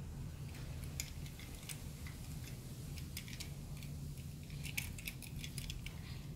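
Light clicks and ticks of a small colour-changing Lightning McQueen toy car being handled in a child's fingers, with a quick cluster about five seconds in, over a steady low hum.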